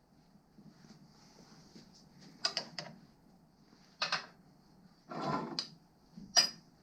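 Workshop handling noise of tools and engine parts: a few sharp clicks and knocks, about two and a half, four and six and a half seconds in, with a short scraping rattle around five seconds.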